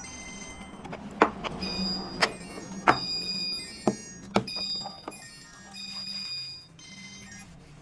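About six sharp knocks or clicks at irregular intervals, over background music.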